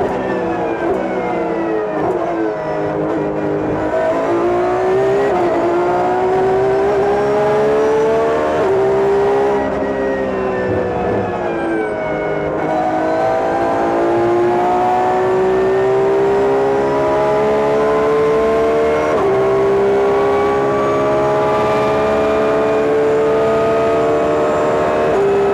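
Porsche 911 GT3 R race car's naturally aspirated flat-six engine heard onboard at racing speed, its pitch falling under braking and downshifts about two seconds in and again around ten seconds in, then climbing hard with sharp upshifts at about nineteen seconds and near the end.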